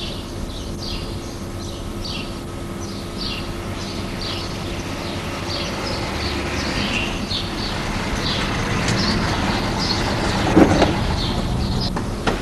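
Outdoor street ambience: a bird repeats a short falling call about twice a second over a steady low hum and a vehicle-like rumble that slowly swells, with a brief thump about ten and a half seconds in.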